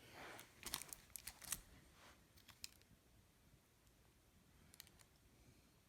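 Faint clicks and short rustles of ceiling fan blades and their packaging being handled, bunched in the first couple of seconds, then near silence with a few small ticks.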